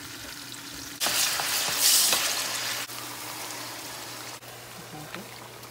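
Chopped onions frying in hot oil in a pan. About a second in, the sizzle flares up loudly for a second or two as wet sauce is added to the hot oil, then settles back to a steady sizzle.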